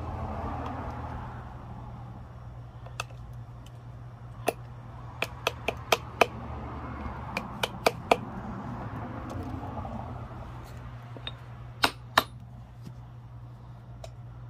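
Small metal U-joint parts clicking and clinking against each other in the hands: scattered sharp clicks, a quick run of them in the middle and two loud ones near the end, over a steady low hum.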